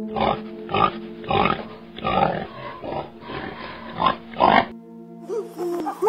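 Domestic pig grunting: a run of short, rough grunts about every half second, over background music. Near the end the grunts stop, and chimpanzee hoots rising and falling in pitch begin.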